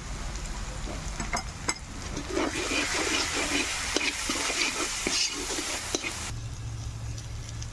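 Long flat metal spatula stirring and scraping spice masala frying in oil in a metal kadhai. A few sharp clicks of the spatula on the pan come first; about two seconds in a sizzling hiss swells under the scraping strokes, and it stops suddenly about six seconds in.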